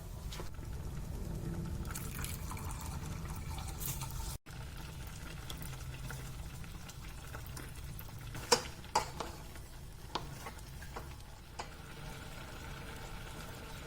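Liquid sloshing and pouring during kitchen cleaning, with a few sharp clinks in the second half.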